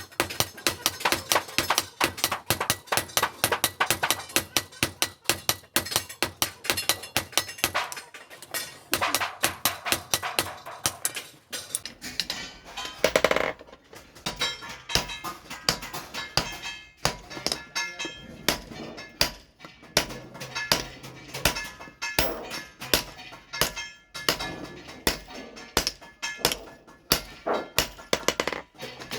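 Rapid, repeated hammer blows on hot steel at the anvil, forging an axe head, with a short break about halfway through before the ringing strikes resume.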